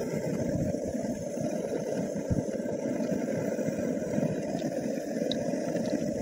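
Paneer pakoras deep-frying in hot oil in a pan over a portable gas stove: a steady low rushing noise with a few faint crackles from the oil.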